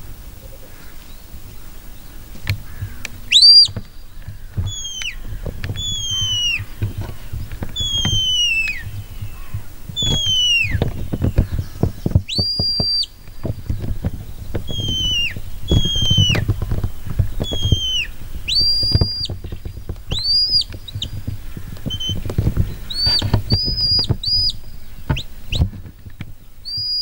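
A shepherd whistling commands to a working sheepdog as it brings in the sheep: a run of high, clean whistles, mostly falling in pitch, some held flat or rising, with a loud one a few seconds in and short quick ones near the end. Wind rumbles on the microphone underneath.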